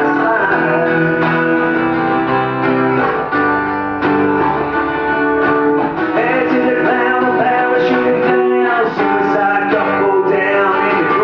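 Live band music led by guitar, with a singing voice holding and bending notes.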